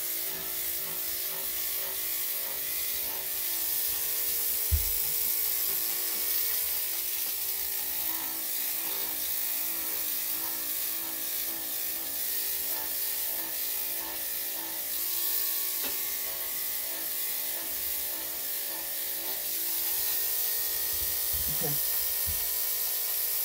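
Electric dog grooming clippers running steadily as they shave through a heavily matted coat, a constant motor hum with a hiss of cut fur. A single sharp knock about five seconds in.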